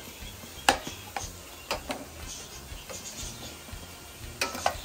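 Metal spoon knocking and scraping against a stainless steel pot as mushrooms are stirred: a handful of sharp clinks, the loudest just under a second in and a quick cluster near the end.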